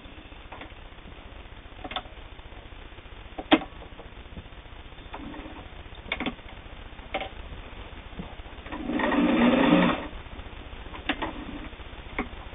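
All-metal Singer 401A sewing machine running briefly, a little over a second, about nine seconds in, stitching through flannel on a long basting stitch. Several sharp clicks and knocks come before and after the run.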